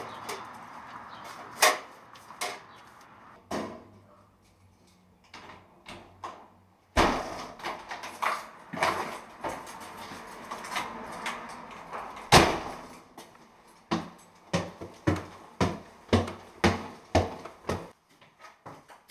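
A mailbox and a storm door handled, then footsteps: scattered sharp clacks and knocks, two loud bangs about 7 and 12 seconds in, then a run of footsteps at about two a second near the end.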